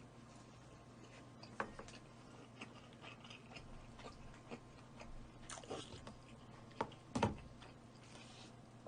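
Close-up mouth sounds of someone eating roast chicken: faint chewing with scattered small crunches and wet clicks, and a louder bite a little past seven seconds in.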